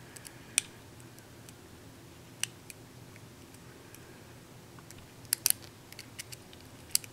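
Faint, sharp metallic clicks, a handful scattered irregularly with a close pair about five seconds in, from the pin-tumbler pins of a lock cylinder setting as it is picked with a slimline pick under tension.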